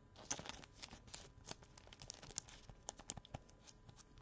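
A run of faint light clicks and rustles: a trading card and a clear plastic card stand being handled by gloved hands.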